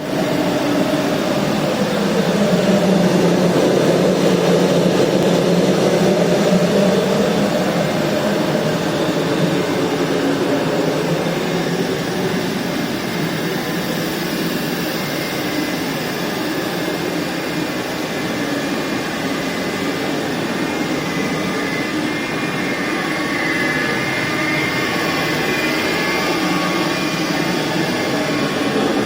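Industrial machinery running steadily: a loud, continuous rushing hum of fans and motors with a low drone underneath, a little fuller over the first several seconds.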